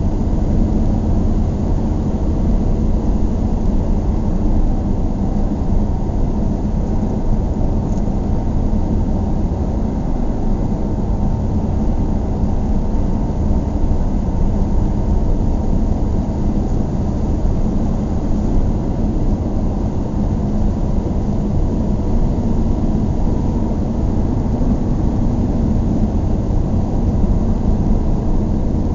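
Steady low rumble of a car driving on a highway: tyre and engine noise at cruising speed, even throughout with no distinct events.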